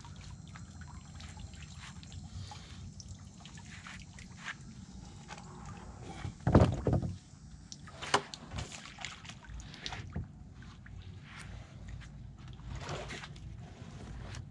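Knocks, clunks and scrapes of old, weathered dock timbers with rusted bolts being worked loose and handled, with one louder heavy clunk about six and a half seconds in. Water sloshes faintly below.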